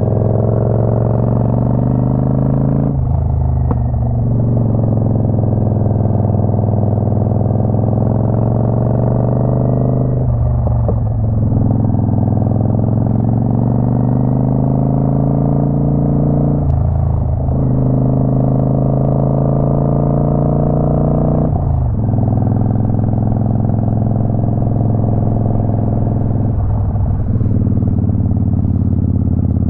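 Motorcycle engine running under load, its note climbing slowly over several seconds and then briefly breaking off and dropping, five times over.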